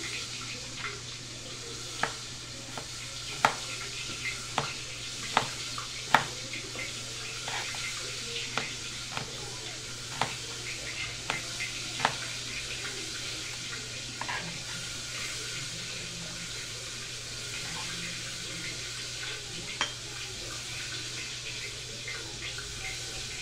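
Chef's knife knocking against a chopping board as tomatoes and an onion are sliced: irregular sharp knocks, many in the first half, then only a few. Under it, the steady sizzle of fish frying in oil.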